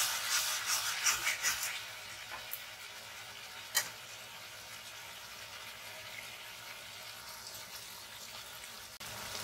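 Wooden spatula stirring and scraping through potatoes, onions and tomatoes in a karahi for about two seconds, then the vegetables sizzling steadily in oil as the masala fries in. One sharp click about four seconds in.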